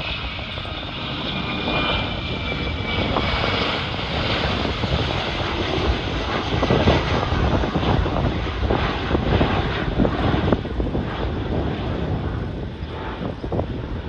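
Boeing 717 jet climbing out after takeoff, its two rear-mounted Rolls-Royce BR715 turbofans giving a loud, steady jet rumble, with a faint high whine in the first few seconds.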